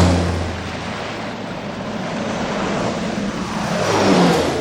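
Propeller aircraft engine passing by with a low drone, swelling loudest about four seconds in.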